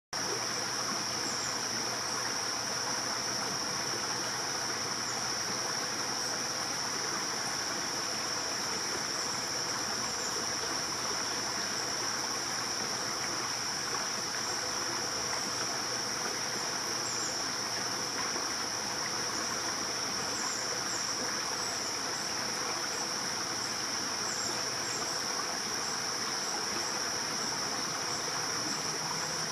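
Insects, likely crickets, trilling in one steady high continuous buzz, over an even rushing noise like a running stream, with faint short high chirps here and there.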